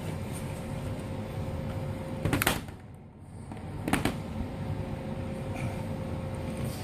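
Two knocks as the HP Pavilion dv6000 laptop is handled and flipped over, one about two seconds in and another a second and a half later, over a steady low hum.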